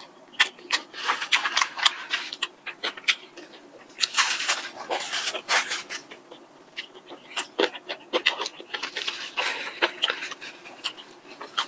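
Close-miked eating: chewing with wet mouth clicks, and hissy breaths blown out through the mouth about four to six seconds in and again near the end. A disposable plastic glove rustles as it picks up sushi.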